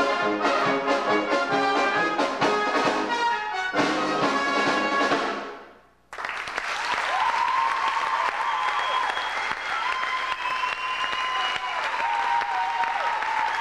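Live brass ensemble with drum kit playing a rhythmic passage of short, punchy chords, which ends and dies away about five seconds in; after an abrupt cut, audience applause.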